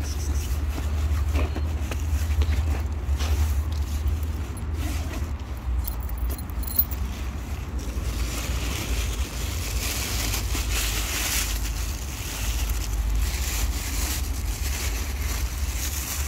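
Wind buffeting the microphone: a steady, flickering low rumble, with a hiss joining in from about halfway through.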